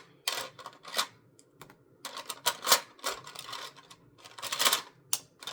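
Plastic LEGO pieces clicking and clattering in irregular bursts as they are handled and fitted together.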